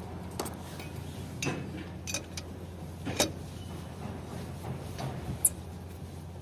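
Scattered metallic clicks and clinks, about six, spread over the few seconds, the loudest about three seconds in and again near five and a half. They come from a steel four-way cross lug wrench being fitted onto a car wheel's lug nuts while the nuts are swapped one by one.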